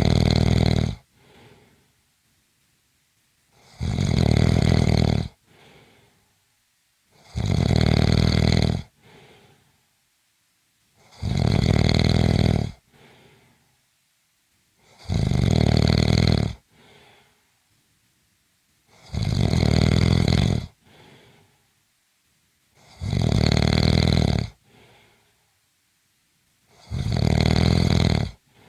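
Rhythmic snoring: a long, loud, buzzing snore roughly every four seconds, eight in all, each followed by a short faint breath.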